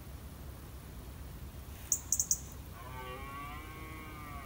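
A quick cluster of three or four very short, very high chirps about two seconds in. A longer, wavering pitched call follows from about three seconds in, over a faint low outdoor rumble.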